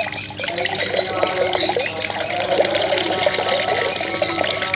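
Water pouring from a plastic bag into cupped hands and spilling through the fingers, splashing and trickling into the pond.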